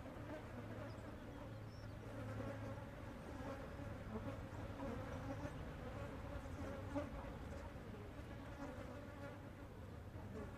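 Many flies buzzing steadily in a swarm over a rotting, maggot-filled raccoon carcass.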